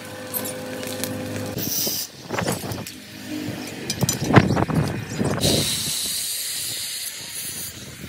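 Handheld angle grinder running as it cuts steel rod, its steady whine stopping about a second and a half in. Then steel rods clank and knock as they are handled, followed by a high hiss near the end.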